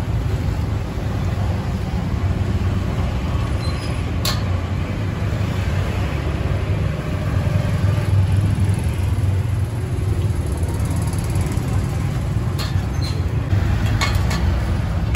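Steady low rumble of street traffic and running engines, with a few sharp clicks, one about four seconds in and several near the end.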